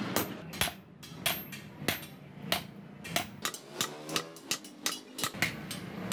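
Hammer blows on a knife blade held on a blacksmith's anvil during hand forging: sharp metallic strikes, about two a second, uneven in spacing and loudness, each ringing briefly.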